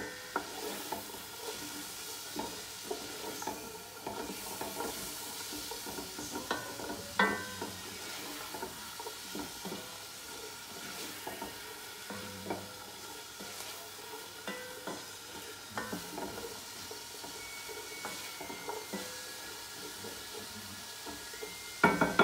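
Chopped onion, garlic, celery and carrots sizzling in olive oil in a soup pot, with a spoon stirring them and knocking against the pot now and then.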